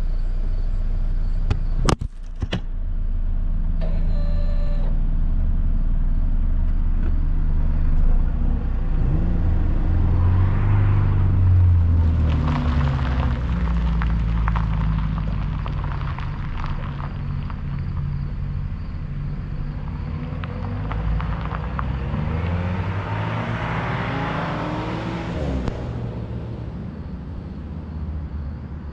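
About two seconds in, a sharp clatter as the camera falls off the car onto gravel. Then a car's engine and exhaust heard from a distance, rising and falling in pitch as it pulls away, under steady wind rumble on the microphone, fading slowly near the end.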